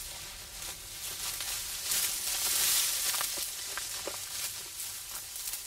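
Dry, ripe wheat stalks rustling and crackling as people wade through a wheat field, with many small crackles and a louder swell of hiss around the middle.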